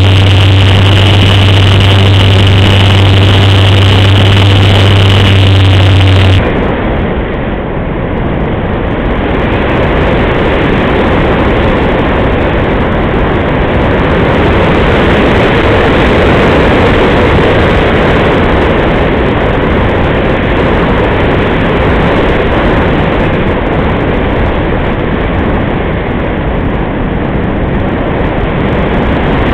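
The electric motor and propeller of a Multiplex Easy Glider model sailplane run with a steady hum, cutting off abruptly about six seconds in as the motor is shut down for gliding. After that only a steady rush of airflow over the glider remains, picked up by the onboard camera's microphone.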